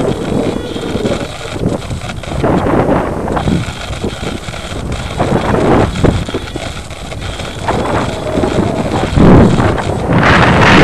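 Wind rushing and buffeting over the microphone of a camera riding on a small electric RC foam airplane in flight, rising and falling in gusts and getting louder and steadier near the end.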